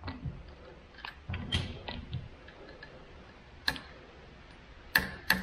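Ratcheting hand pipe threader on a stainless steel tube, giving a few irregular metallic clicks and knocks as the handle is worked with the ratchet flipped to back the die off and clear chips from the freshly cut threads. The sharpest clicks come near the end.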